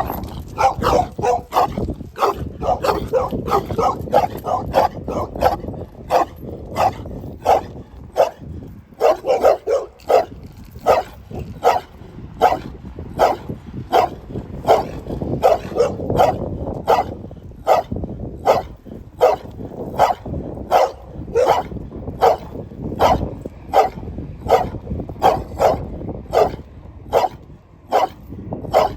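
A dog barking repeatedly in a long, regular series, about one and a half to two barks a second, a little faster in the first few seconds.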